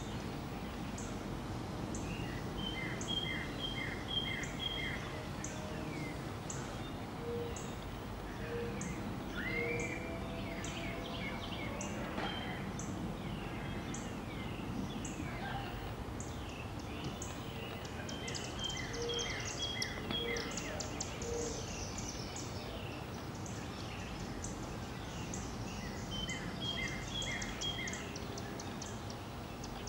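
Outdoor birdsong over a steady low background noise: a bird repeats a short phrase of quick notes a few times, other birds call, and a thin high chirp repeats about once a second through the first half.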